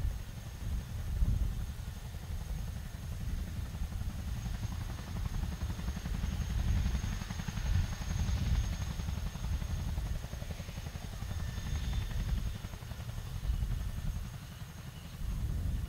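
RAF Boeing Chinook twin-rotor helicopter running on the ground with both rotors turning: a steady low, pulsing rotor beat with a faint high turbine whine above it.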